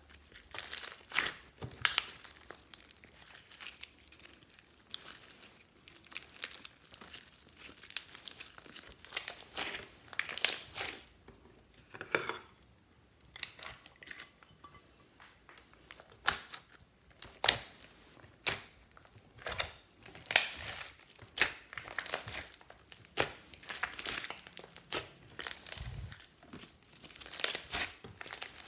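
Slime being mixed and squeezed, giving irregular clusters of sticky crackles and pops.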